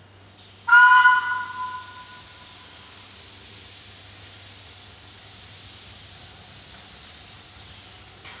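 A steam locomotive's whistle gives one short, loud multi-tone toot about a second in and fades away, then steam hisses steadily.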